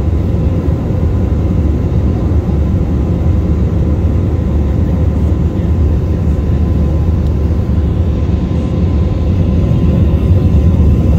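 Steady low rumble of a jet airliner's cabin in flight, from a seat over the wing, with a faint steady whine above it.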